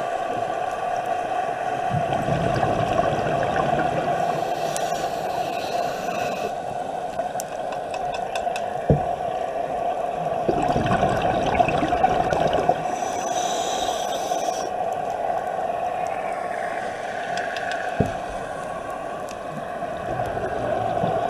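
Underwater sound of a scuba dive: a diver's regulator breathing, with exhaled bubbles gurgling in spells, over a steady hum. Two sharp clicks stand out, about nine seconds in and near the end.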